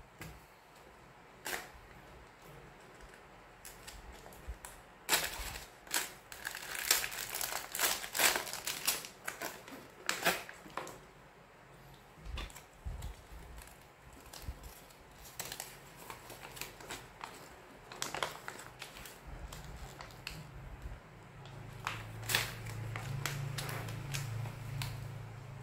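Plastic packaging and paper of a micro-brick kit being torn open and handled: bursts of crinkling and rustling, busiest in the first half, with scattered single clicks. A low hum comes in near the end.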